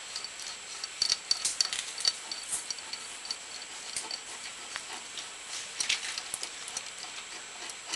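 Scattered light metallic clicks and taps as a crankcase splitter tool is unscrewed and taken off a Kawasaki two-stroke engine's cases.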